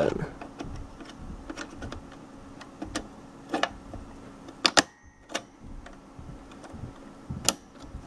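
A RAM stick being worked into a motherboard memory slot by hand: a few scattered sharp clicks and taps of plastic and metal, over a faint steady low hum.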